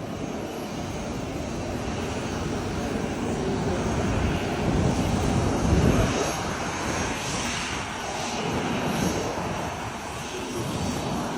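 Jet aircraft engines running, a steady rushing noise with a faint high whine that swells to its loudest about five to six seconds in.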